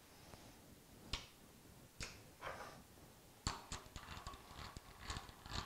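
Quiet metal clicks and knocks from handling a Hurricane HTC125 four-jaw scroll chuck and its chuck key: a few single clicks, then a quick run of clicks in the last two seconds.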